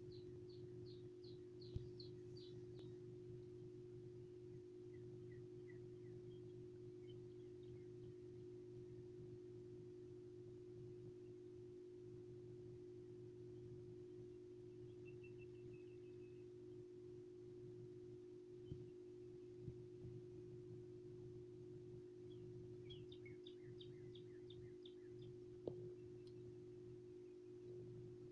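Near silence with a faint steady hum. A small songbird sings a quick series of high repeated notes near the start and again near the end.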